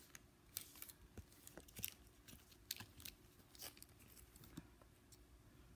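Faint, irregular clicks and crinkles of plastic sauce containers and food wrapping being handled and opened.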